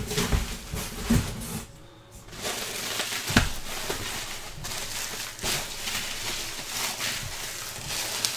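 Plastic bubble wrap crinkling and rustling as a wrapped package is handled, with a few soft knocks.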